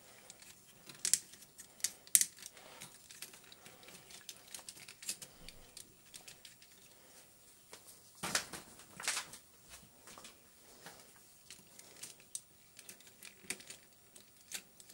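Small clicks, taps and rustles of a die-cast mecha action figure's parts being handled and fitted, as a hand is pegged onto the wrist and adjusted. A few sharper clicks stand out among them.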